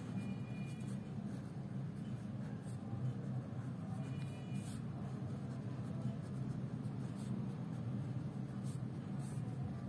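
Ballpoint pen scratching on notebook paper in short strokes while an equation is written out by hand, over a steady low hum.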